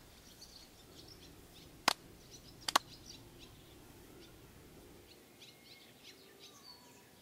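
Two sharp hand claps about a second apart, the second slightly doubled, as two people clap together in prayer to the mountain god, over faint birdsong.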